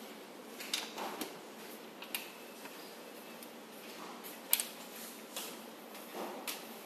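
Light clicks and rustling as the banana plugs of voltage test leads are pushed into panel sockets and the leads are handled, with the sharpest click about four and a half seconds in.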